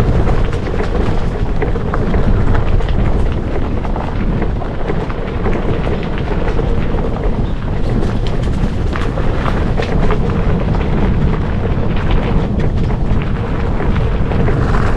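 Gravel bike's 650b × 43c Panaracer GravelKing tyres rolling over a gravel road: a steady low rumble with a constant crackle of small stones clicking under the tyres.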